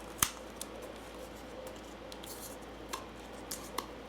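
Handling noise from unwrapping the bundled braided MagSafe charging cable: one sharp click shortly after the start, then a few fainter clicks and light rustles.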